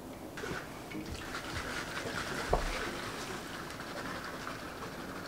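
Eating noises from chewing soft pastry, with small clicks from handling the food, and a single thump about two and a half seconds in.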